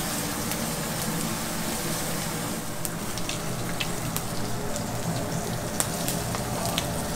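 A 96 oz T-bone steak sizzling as it sears in a hot pan, a steady hiss dotted with sharp pops and crackles of spitting fat. A steady low hum runs underneath.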